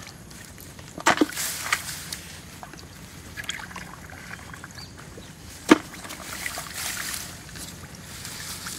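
Water sloshing and splashing in a shallow field, with a few sharp knocks about a second in and the loudest single knock near six seconds.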